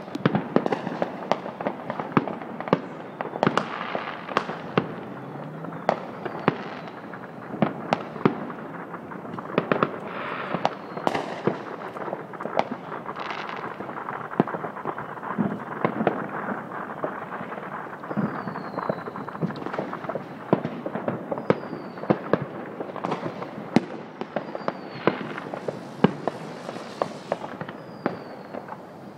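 Backyard consumer fireworks and firecrackers going off all over a wide area: a dense, irregular barrage of cracks and bangs, some loud and close, many faint and far off.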